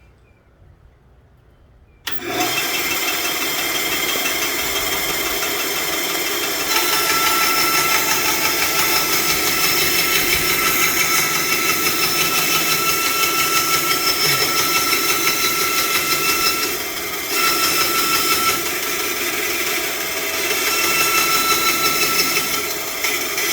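Craftsman benchtop bandsaw switched on about two seconds in and running steadily, a loud motor-and-blade hum with a high whine that joins a few seconds later and briefly dips twice.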